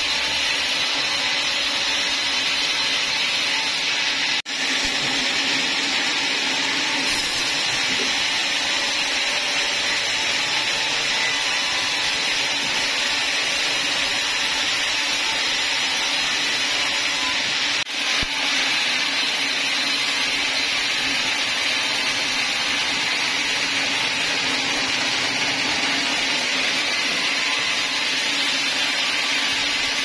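Log band saw cutting lengthwise through a hardwood log: a steady, high-pitched sawing noise that drops out for an instant twice, about four and eighteen seconds in.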